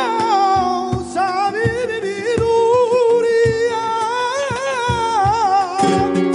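Flamenco cante: a male singer holds long, wavering, ornamented notes over flamenco guitar accompaniment, with low knocks keeping a steady rhythm underneath.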